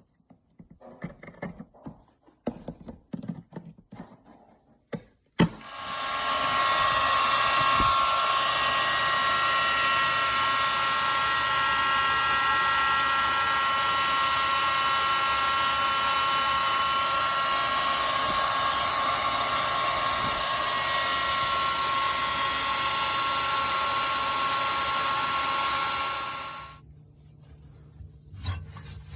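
A few light clicks and scrapes, then a hair dryer switches on about five seconds in and runs steadily with a high whine for about twenty seconds before switching off, blowing hot air to melt ice built up on a fridge's evaporator.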